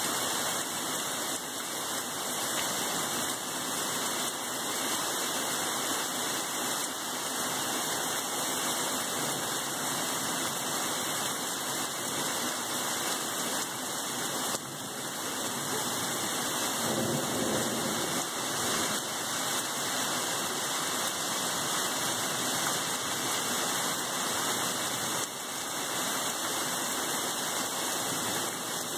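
Rain from a summer storm falling steadily, an even, constant hiss.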